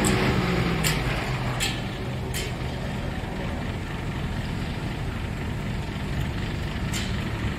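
A mobile crane's diesel engine running while it holds a steel dump-body frame on a chain, louder in the first second or so and then steady. A few short, sharp metallic clicks come through it.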